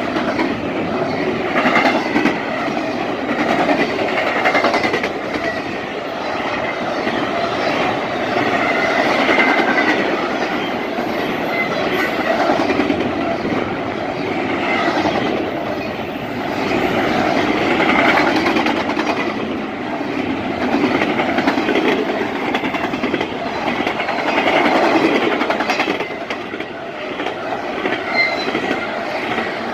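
Norfolk Southern double-stack intermodal train's well cars passing at speed: loud, steady wheel-on-rail running noise that swells and eases every few seconds.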